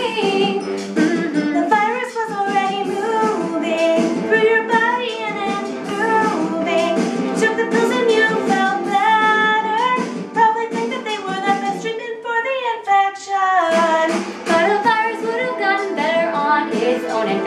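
Women singing a pop-song parody over a backing track with a steady beat; the voices drop out briefly about twelve seconds in.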